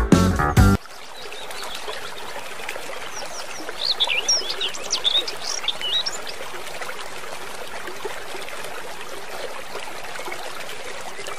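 Steady running water, like a trickling stream, with a bird giving a quick string of chirping whistles a few seconds in. A guitar tune stops abruptly just under a second in.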